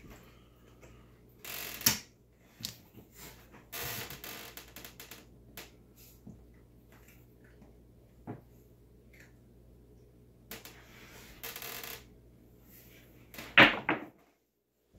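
A pair of craps dice handled on a felt table: short bursts of rattling and clicking as they are picked up and set, then a throw whose dice clatter loudly near the end.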